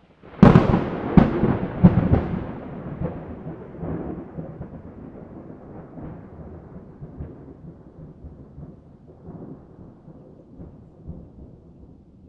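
A thunderclap that starts suddenly with a few sharp cracks in the first two seconds, then rolls on as a long rumble that slowly dies away.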